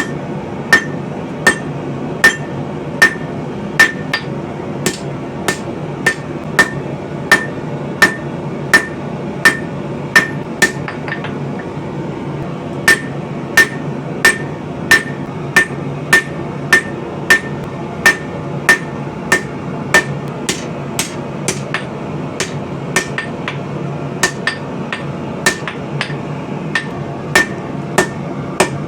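Hand hammer striking hot coil-spring steel on an anvil, about three ringing blows every two seconds, with a brief pause about eleven seconds in. A steady low hum runs underneath.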